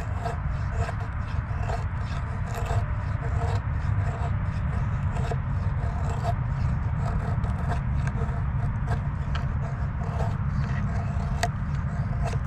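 A knife scraping and shaving a stick of fatwood into tinder: a fast, irregular run of short scrapes, several a second, over a steady low rumble.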